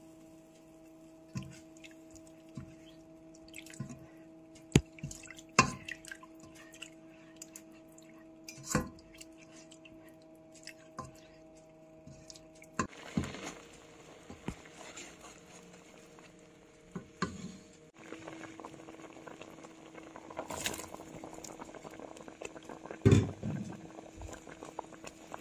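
White sauce heating in a pot, with scattered small pops and plops over a steady hum. Later a silicone spatula stirs and scrapes through the sauce, with a loud knock near the end as chicken and chopped vegetables are worked in.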